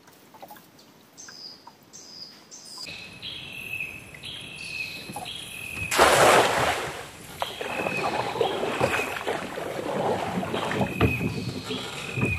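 Small boat on the water, with rough water-and-hull noise that picks up about three seconds in and a loud rush of noise lasting about a second, around the middle. Over it a bird repeats a short high chirp about twice a second.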